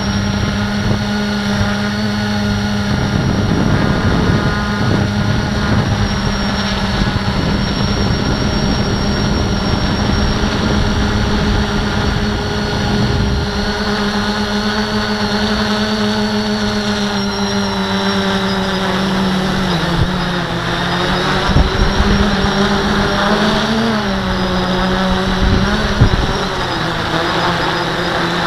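Q450 quadcopter's motors and propellers whining steadily as heard from the camera on board, the pitch wavering and shifting up and down in the second half as the craft manoeuvres. Low rumbling wind buffets the microphone, with a few sharper gusts near the end.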